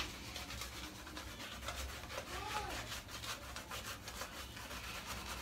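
Wolf Whiskers 25mm fan-knot shaving brush scrubbing brushless shaving-cream lather over a shaved scalp: repeated quick strokes of bristles rubbing against skin.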